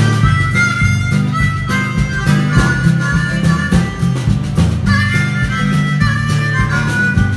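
Harmonica playing a solo over strummed acoustic guitars and drums, an instrumental break in an up-tempo folk-gospel song.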